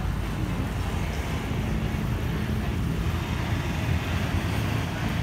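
Steady low outdoor rumble of road traffic, mixed with wind on the microphone.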